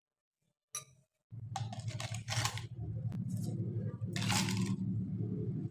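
Ice cubes poured from a bowl into a plastic cup, clattering in several bursts over a low steady rumble, after a short click about a second in.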